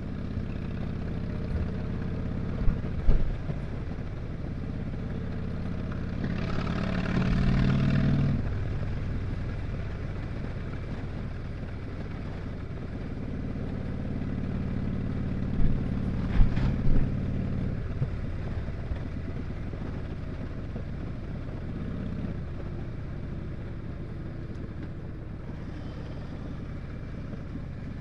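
Harley-Davidson Dyna Street Bob's V-twin engine running under way. It swells louder for a couple of seconds about six seconds in and again for a few seconds after the middle. A few sharp knocks come near the start and again past the middle.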